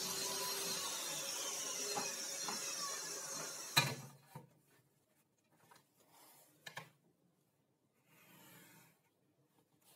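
Table saw spinning down, its whine falling in pitch and fading, until a sudden cut about four seconds in. Then quiet handling: a steel square laid on plywood with a light knock, and a pencil scratching a line along it.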